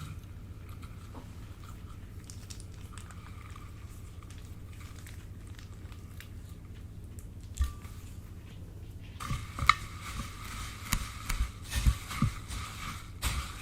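Slime being worked in plastic piping bags: soft sticky clicks and crinkles, faint at first, then a run of louder, denser clicks from about nine seconds in, over a low steady hum.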